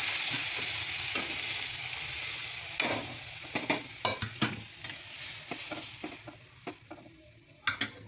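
Hot oil tempering (tadka) in a kadai sizzling as cooked dal and vegetables are poured in, the sizzle dying away over the first few seconds. From about three seconds in there are scattered clicks and taps in the pan.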